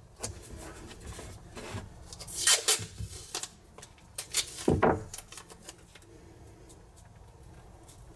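Masking tape pulled off the roll and torn, in two short ripping bursts about two and a half and four and a half seconds in.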